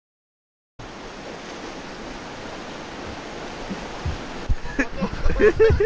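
Steady rush of river rapids, cut out completely for a moment at the start. About four and a half seconds in, music with a low beat comes in over the water.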